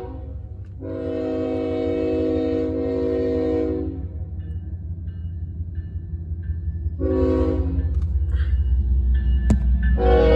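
Diesel freight locomotive's air horn sounding at a grade crossing: a long blast, a short blast about seven seconds in, and another long blast starting near the end, over the low rumble of the locomotives' diesel engines, which grows louder as they draw near.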